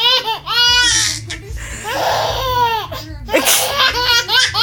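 A baby laughing in runs of short, high-pitched peals, broken about two seconds in by an adult's fake sneeze, after which the baby laughs again.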